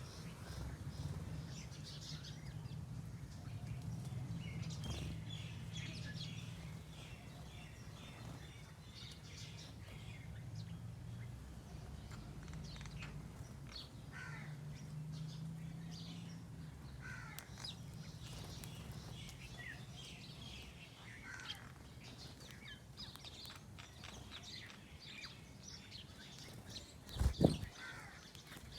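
Small birds chirping and calling over and over, short high chirps through the whole stretch, over a steady low rumble. A single loud thump near the end.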